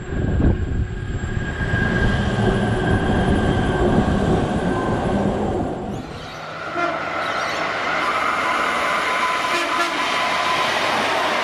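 Train running on rails: a dense low rumble of the wheels on the track. About six seconds in it changes to a lighter, hissier train sound with steady tones.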